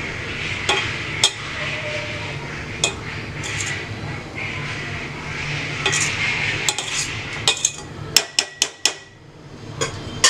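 A spoon scraping and knocking against a cooking pot as cooked rice is spread in a layer over the chicken, with a quick run of about six sharp taps about eight seconds in. A low steady hum runs underneath.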